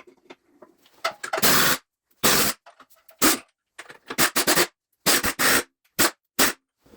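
Hand-tool work on engine fasteners: irregular short bursts of metallic scraping and clicking as a spanner or ratchet works at a nut that is seized onto its stud and turning the stud with it.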